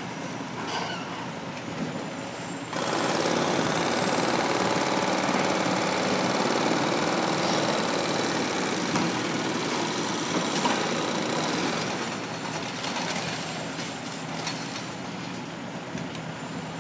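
Hydraulic breaker hammering continuously, its rapid blows merging into a loud, dense clatter that starts abruptly nearly three seconds in and eases somewhat about twelve seconds in. Lower excavator engine noise runs underneath.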